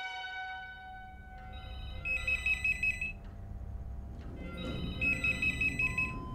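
A telephone rings twice with a warbling electronic ring, each ring about a second long and the two about three seconds apart, over a low steady rumble.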